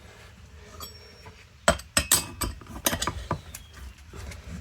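Sharp clicks and clinks of hand tools and plastic and metal chainsaw parts being handled on a workbench, in a cluster from about a second and a half in, as the saw is opened up to get at its spark plug.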